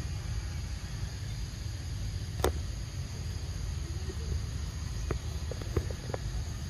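A baby macaque eating fruit close by: a few short sharp clicks of biting and chewing, one about two and a half seconds in and a cluster near the end. Under them run a steady low rumble and a high insect drone.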